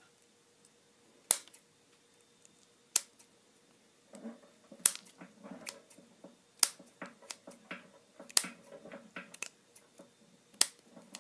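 Scissors snipping through electrical tape: about six sharp snips a second and a half to two seconds apart, with softer rustling of tape and hands between them, trimming the excess tape at the bottom of a small bulb.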